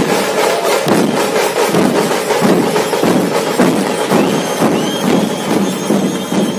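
Dhol tasha ensemble playing at full volume: many large barrel-shaped dhol drums beaten in a driving rhythm of heavy strokes, under a dense, rapid crackle of tasha strokes. A thin, high steady tone joins about four seconds in.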